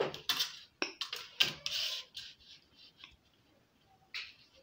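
Plastic adjustable set square and T-square being slid and knocked into place on paper over a wooden drawing board: a quick run of clicks and scrapes in the first two seconds, then a short scrape about four seconds in.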